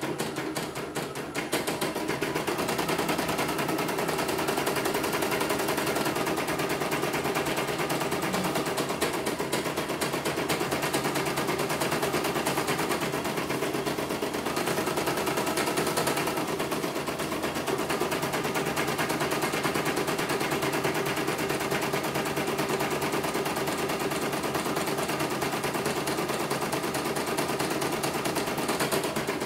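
CNY portable embroidery machine stitching a design, its needle working in a fast, steady rattle of rapid strokes.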